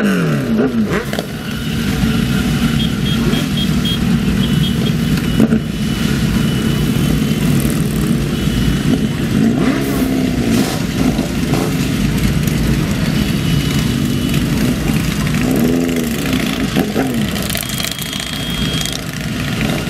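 Many motorcycle engines, a mix of sports bikes and cruisers, running at low speed together as a large group of bikes moves off slowly. Riders blip their throttles now and then, giving short revs that rise and fall over the steady rumble of the pack.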